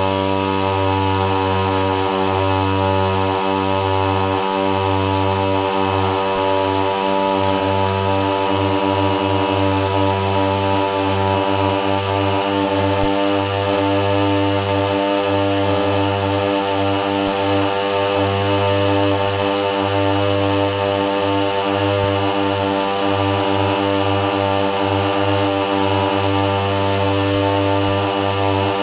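Two 30cc two-stroke brush cutter engines, a Mitsubishi TU33 and a Stihl FR3001, coupled shaft to shaft and both running at full throttle against each other. The drone holds a steady pitch with neither engine gaining on the other.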